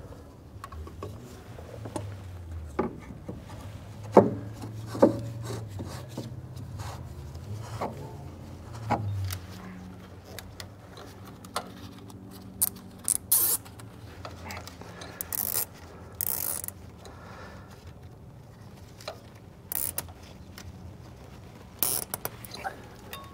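Hands fitting a new fuel filter and water-separator bowl on a Caterpillar 259D3 track loader: rubbing and scraping of the filter against the head and gloves, with scattered sharp clicks and knocks. A low hum runs under the first nine seconds or so.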